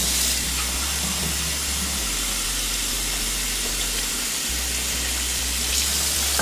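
Kitchen faucet running steadily into a plastic measuring cup over a stainless steel sink, with water spilling from the cup and splashing into the basin.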